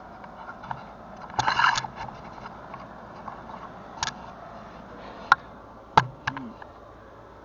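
Handling noise from a carried camera: a short scrape about a second and a half in, then a few sharp clicks and knocks, the loudest a thump about six seconds in.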